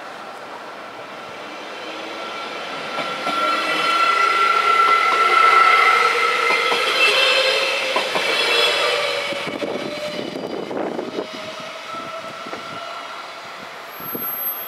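Arriva Stadler GTW-E electric train passing over a level crossing: its noise builds to a peak about five seconds in and then fades, with a whine rising slowly in pitch. A run of wheel clicks comes around ten seconds in.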